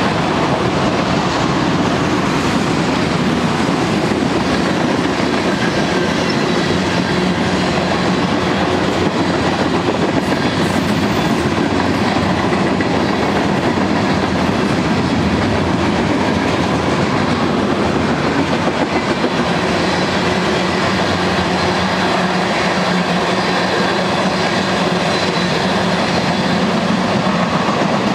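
Freight cars of a BNSF manifest train (auto-racks, gondolas and tank cars) rolling past close by. The steel wheels clack over the rail in a steady, loud rumble and rattle that does not let up.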